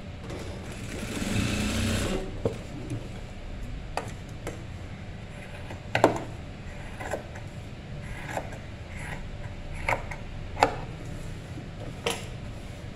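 Singer industrial sewing machine stitching in a short run about half a second in, over a low steady hum, followed by a series of sharp clicks a second or two apart.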